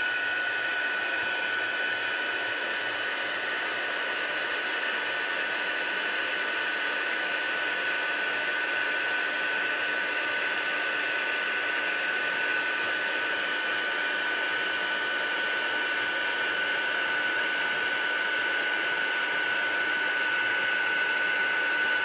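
Craft heat embossing tool running steadily, its fan giving a constant high whine over a rush of hot air as it melts white embossing powder on a stamped sentiment.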